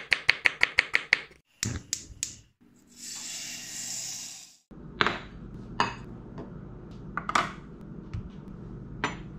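A quick run of about ten sharp clicks in just over a second, a few more clicks, then a short hiss. After that come scattered knocks and clinks of bowls and a lemon being set down on a granite countertop.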